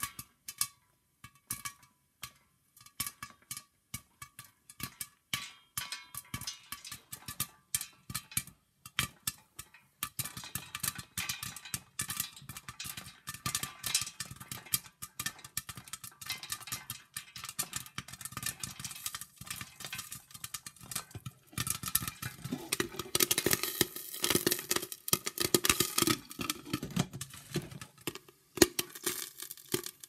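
Popcorn kernels popping inside a lidded stainless steel pot on a hob. A few scattered pops at first become rapid, dense popping about a third of the way in, busiest about three-quarters through, then they thin out near the end.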